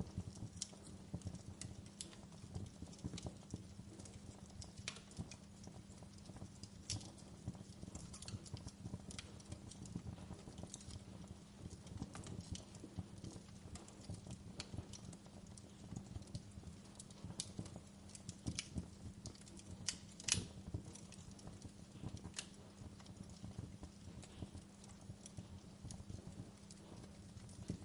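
Wood fire crackling in a fireplace: irregular small pops and snaps over a low, steady rumble of burning, with one louder snap about twenty seconds in.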